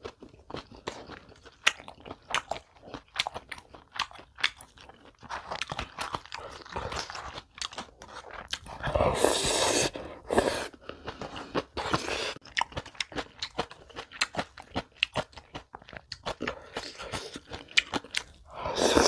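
Close-miked eating sounds of a person chewing crisp food: many irregular little crunches, with a louder, longer noisy stretch about halfway through and another near the end.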